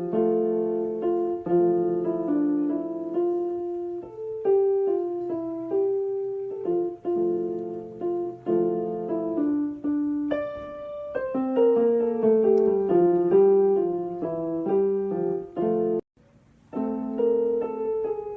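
Background piano music: a gentle melody of struck notes over soft chords, breaking off briefly near the end before resuming.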